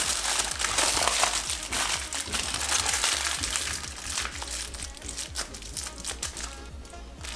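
Aluminium foil crinkling and crumpling as a piece of meat is wrapped tightly in it, busiest in the first few seconds and tapering off toward the end.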